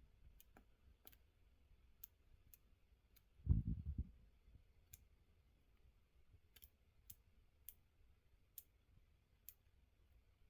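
Irregular small sharp clicks, about a dozen, from the rolling push-in menu controller on a Yamaha Ténéré 700's handlebar switch being rolled and pressed, the button now clicking in and out freely. A dull low bump about three and a half seconds in.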